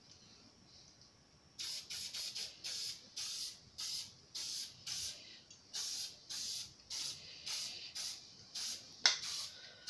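Green Brunox gun-care aerosol spray can hissing in many short bursts, roughly two a second, as protective oil is sprayed over a freshly washed and dried black-powder revolver frame. There is a sharp knock about nine seconds in.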